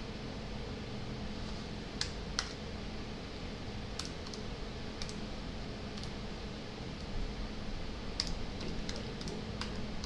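Computer keyboard being typed on as a number is entered: about a dozen scattered keystroke clicks, some in quick pairs, over a steady low hum and hiss.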